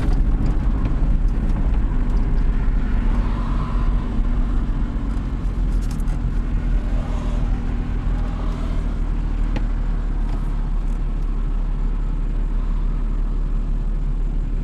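A 2020 Lotus Evora GT's supercharged V6 running, heard from inside the cabin with tyre and road noise. It makes a steady low drone that eases off a little over the first several seconds.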